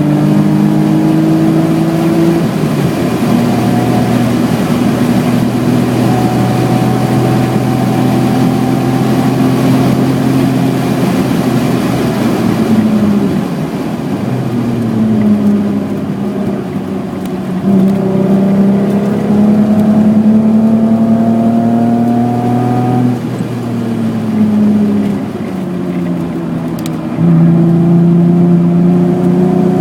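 1986 BMW E28's 3.6-litre straight-six engine being driven hard: its note climbs steadily through the revs and then drops sharply at each lift or gear change. There is one drop about two seconds in, a longer fall and slow recovery between about 13 and 18 seconds, and further climbs broken by drops near 23 and 27 seconds.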